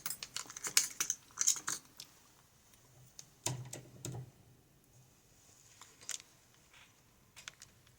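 Scattered small metallic clicks and taps of lock-picking tools being handled at a lock, in a few short clusters.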